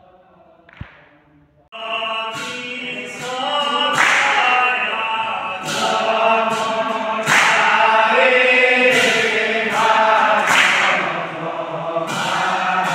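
A group of men sing a devotional chant together, starting suddenly about two seconds in, with sharp hand claps every second or so.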